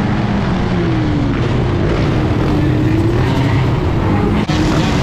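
Yamaha Banshee quad's two-stroke twin engine running under way, its pitch dipping and climbing again around the middle.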